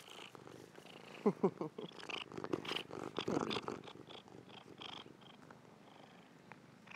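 Domestic tabby cat purring right against the microphone, with a few short falling chirps about a second in. Its fur rubs and brushes against the microphone in the middle, giving scratchy rustling.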